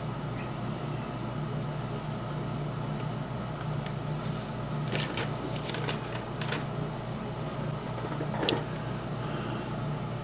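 Steady hum of workshop room tone, with a few light clicks and taps of small model-locomotive parts being handled on the workbench: a cluster about halfway through and a sharper click near the end.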